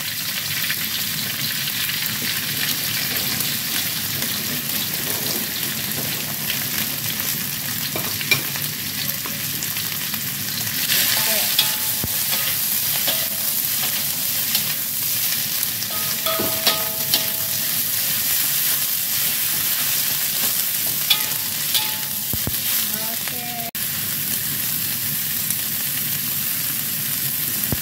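Papaya shoots and leaves stir-frying in hot oil in a metal wok: a steady sizzle, with the metal spatula scraping and clicking against the pan now and then.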